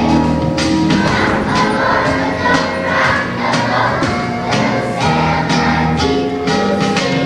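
A choir of first-grade children singing a song with instrumental accompaniment and a steady beat.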